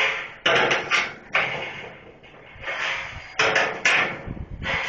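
About four sharp metallic clanks as steel support rods are slid back through the wall of a steel drum smoker and the cooking grate is handled. Each knock fades out over about half a second.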